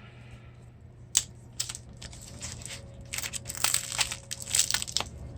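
Packaging being unwrapped by hand: scattered rustles and crinkles, thickest in the second half, with a sharp click about a second in.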